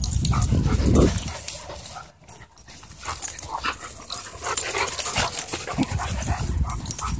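Wolfdog and huskies playing rough at close range, with short yips and whimpers and a low rumble in the first second or so.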